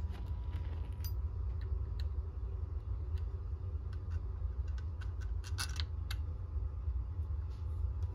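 Light metal clicks and clinks as the halves of a Ford alternator and its bolts are handled and fitted together, with a quick run of clinks about five and a half seconds in, over a steady low hum.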